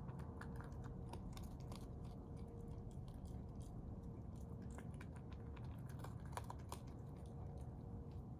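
Raccoon chewing and crunching its food, a run of small irregular clicks and snaps.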